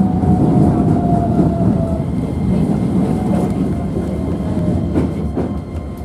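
Keisei commuter train heard from inside the car as it slows along the platform into a station. The low rumble of wheels and running gear carries a whine that falls in pitch as the train brakes. The sound fades gradually, with a couple of clicks near the end.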